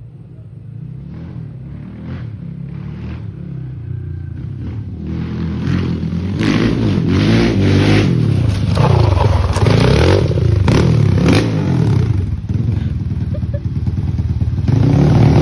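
Kawasaki KLX150 trail bike's freshly built single-cylinder engine, bored up to 70 mm, being revved up and down again and again on its test run. It grows steadily louder over the first several seconds and then stays loud.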